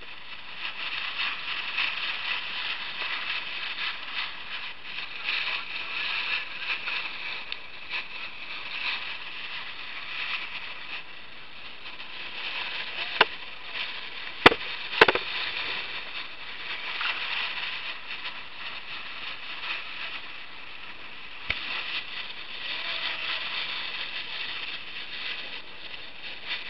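Bow wave rushing and splashing along a moving boat's hull, a steady crackling hiss. A few sharp knocks stand out in the middle, with one more later on.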